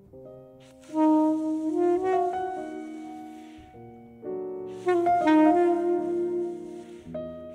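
Soprano saxophone playing a jazz melody over grand piano chords. The sax comes in about a second in, eases off near the middle while the piano carries on, and comes back strongly about five seconds in.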